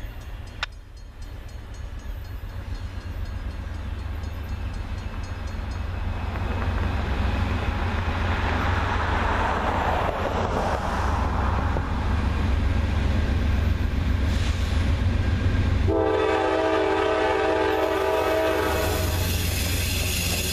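A pair of GE C44-9W (Dash 9-44CW) diesel locomotives approaches, with a low engine and rail rumble that builds steadily louder. Near the end, the lead unit sounds a Nathan K5LA five-chime air horn in one blast of about three seconds, then the rumble brightens as the units draw close.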